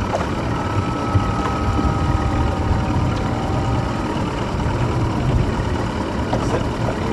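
Ski boat's engine idling steadily, mostly low-pitched, while the boat waits for a water-skier in the water.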